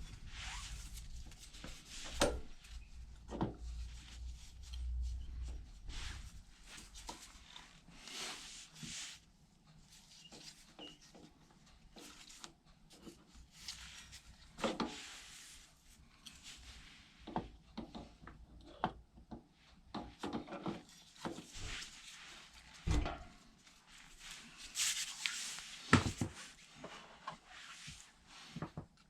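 Hands working on motorcycle engine parts: scattered clicks, taps and scrapes of metal parts and tools being handled, with a low rumble that stops about six seconds in.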